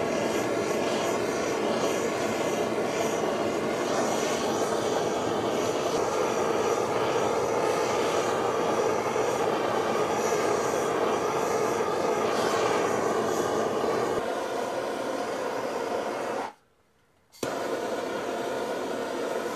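Hand-held propane torch burning with a steady hissing rush as its flame is played over the wooden atlatl to char it black. The sound cuts out for under a second near the end, then comes back.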